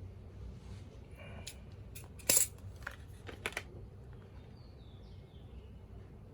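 A few light clicks and knocks of small hard plastic and metal parts being handled, with one sharp clack about two and a half seconds in, over a low steady hum.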